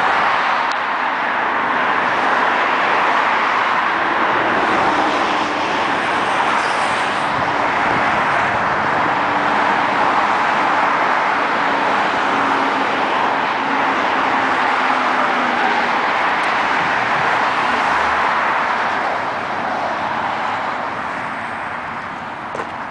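Steady road traffic noise, a continuous hiss of tyres on pavement that eases off somewhat near the end.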